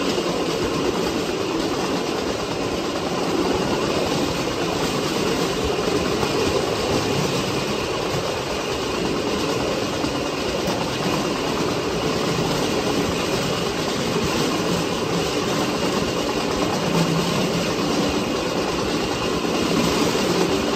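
Vélorail rail bike's steel wheels rolling along the rails, a steady rumble and rattle made hollow by the railway tunnel around it.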